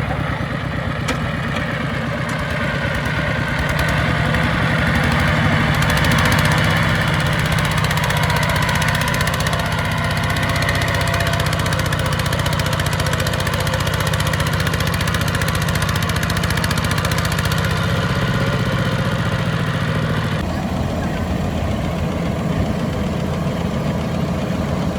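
Engines of farm machinery working in a rice field, running steadily. The sound's higher part drops away abruptly about twenty seconds in.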